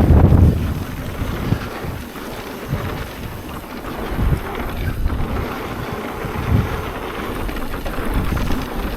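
Strong wind buffeting the microphone with a low rumble, a hard gust in about the first half second, then steadier.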